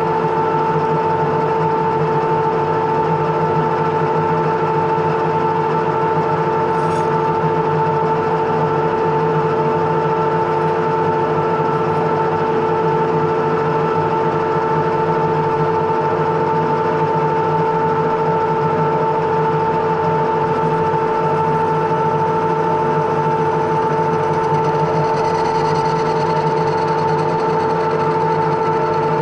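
Metal lathe running steadily while turning a steel bar, with a steady whine that holds one pitch throughout.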